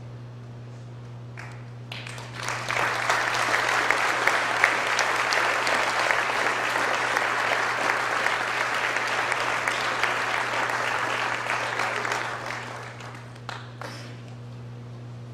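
Audience applauding. The clapping swells about two seconds in, holds for roughly ten seconds, then dies away, with a few last claps near the end.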